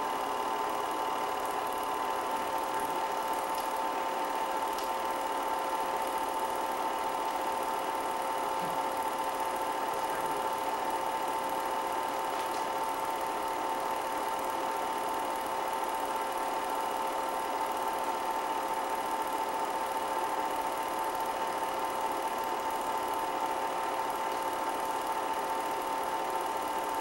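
Steady mechanical whirr with a constant hum that does not change through the picture cuts, typical of a film projector running under old silent film footage.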